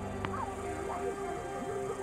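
Background film score of sustained held notes, with wavering higher sounds over it and a single faint click about a quarter second in.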